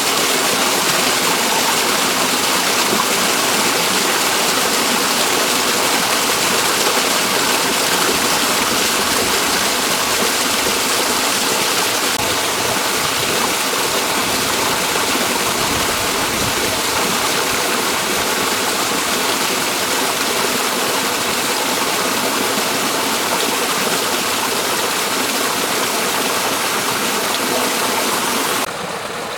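Small waterfall running, a loud, steady rush of falling water. It cuts off suddenly near the end, giving way to a quieter sound.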